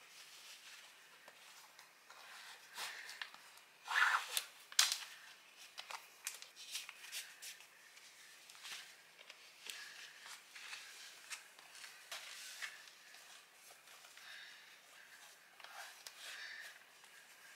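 Rustling and scuffing of a lace-up high-top sneaker being pulled on, its laces tugged tight and tied, in scattered short handling noises with a couple of louder rustles about four to five seconds in.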